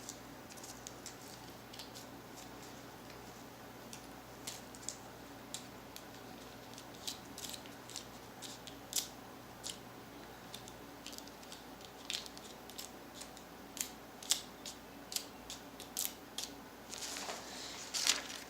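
Irregular small clicks and taps of objects being handled, with a longer rustling scrape near the end.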